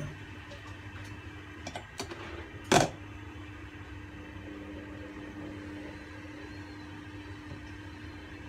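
Steady low hum of a kitchen appliance, with a few faint clicks and then one sharp knock a little under three seconds in.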